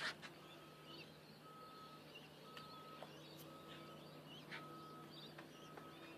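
Faint reversing alarm of a vehicle backing up, beeping a single steady tone about once a second over a low steady hum.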